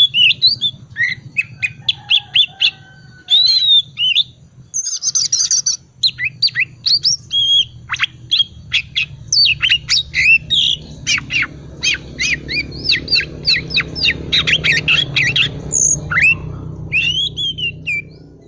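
Oriental magpie-robin (kacer) singing a rapid, varied twittering chatter of short chirps and whistled notes, over a low steady hum. This is the soft 'ngriwik' song used as a lure to set other magpie-robins singing.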